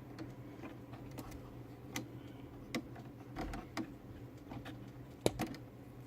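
Faint, scattered small clicks and taps from handling tools and wiring, over a steady low hum.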